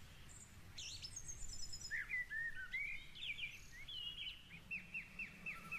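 Songbirds calling and chirping, faint, with several short chirps and a high trill, then a run of quick repeated down-slurred notes, about five a second, in the second half. A low steady background noise sits underneath.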